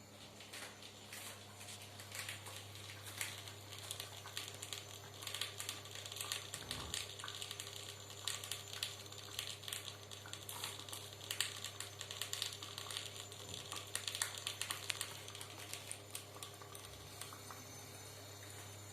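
Irregular soft clicking and crackling, many small ticks a second, over a low steady hum.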